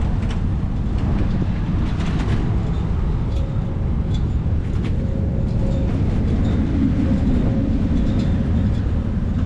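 Storm-force wind buffeting the microphone in a loud, steady, fluttering rumble. A faint steady tone runs through the middle.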